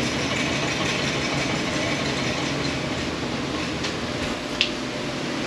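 Indoor shooting range's motorized target carrier running the paper target back downrange: a steady mechanical rumble, with a couple of faint clicks about four seconds in.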